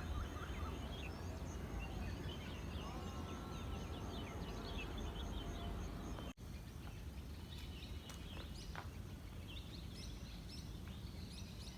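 Small birds chirping and twittering over a steady low rumble, with a fast high ticking, like an insect, through the first half.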